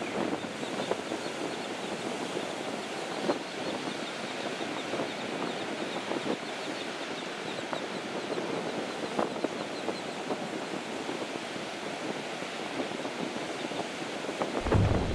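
Steady surf washing on the beach, with a mixed flock of sea birds (black skimmers, royal terns and gulls) giving faint short calls. A low wind rumble on the microphone comes in near the end.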